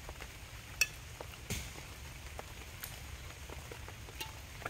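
Light rain falling, a steady patter with scattered drops ticking; one sharp tick stands out just under a second in.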